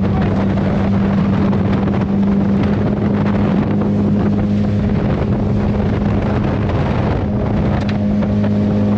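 Motorboat's engine running at a steady speed, a constant low hum, with wind buffeting the microphone.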